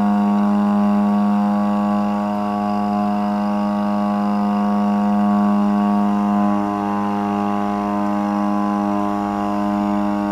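Digital TS-60 amplifier putting out a loud, steady buzzing hum with no signal playing. The repairer traces this fault to a failed 16 V, 220 µF capacitor on the board.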